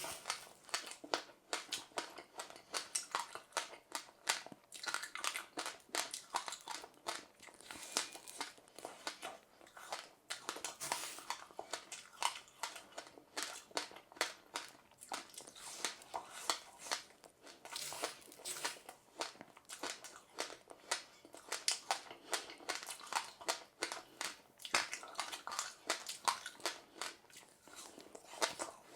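Close chewing of passionfruit pulp and sesame seeds: a dense, irregular run of small crunches and crackles as the seeds are bitten and crushed.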